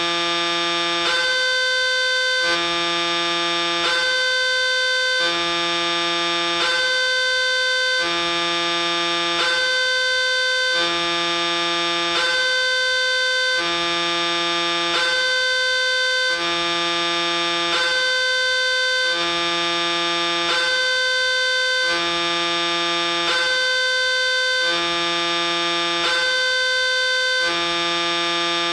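Indonesian railroad crossing warning siren: an electronic signal alternating evenly between two tones, switching about every 1.3 seconds, repeating without change.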